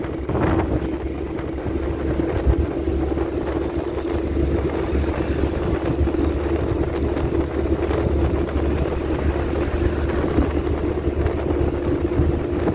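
Running noise of a moving road vehicle: steady engine and tyre rumble with a constant hum, and wind rushing past.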